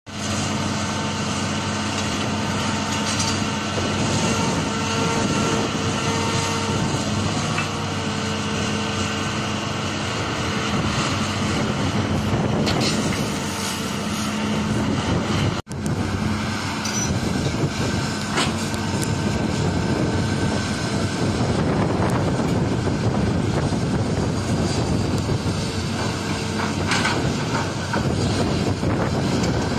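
Hitachi crawler excavator working: its diesel engine runs steadily under a held hydraulic whine, with a few clanks and knocks as the bucket digs and dumps sand and rock. The sound drops out for an instant about halfway through.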